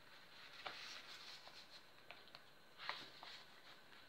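Near silence with a few faint taps and rustles of paper and card being handled, the clearest about three seconds in.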